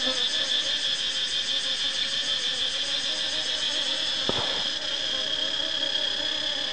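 Steady high-pitched insect chorus, a fast pulsing chirr, with a single click about four seconds in.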